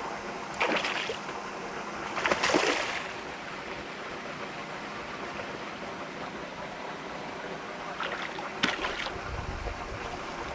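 Hooked black sea bream thrashing at the water's surface during the fight: short splashes about a second in, again around two and a half seconds in, and twice more about eight seconds in, over steady lapping water.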